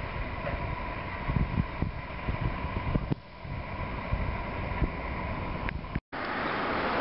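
Wind buffeting the microphone over the steady running hum of a gravel plant's conveyor machinery, with a thin steady whine for the first few seconds. Near the end the sound cuts out for a moment and comes back as a brighter, louder rush.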